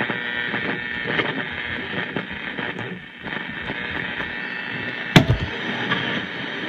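Old radio hissing with static between stations, its sound thin and narrow, with one sharp loud click about five seconds in.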